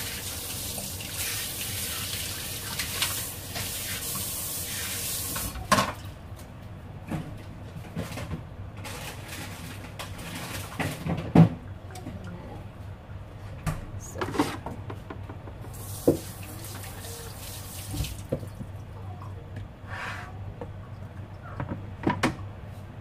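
A kitchen tap running for about five and a half seconds, then scattered knocks and clinks of handled kitchenware, with the tap running briefly again about eighteen seconds in.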